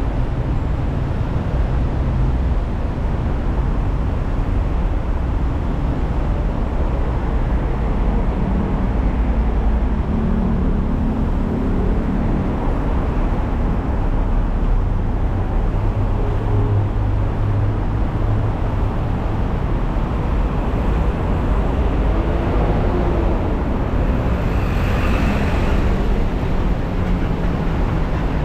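Steady road and engine noise of a car driving along, heaviest in the low end, swelling briefly near the end.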